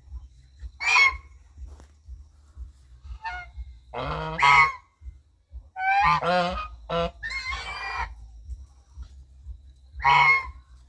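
Goose honking: single loud honks about a second in and around four seconds in, a quick run of several honks from about six to eight seconds, and one more honk near the end.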